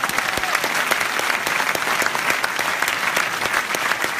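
Audience in a hall applauding, dense steady clapping.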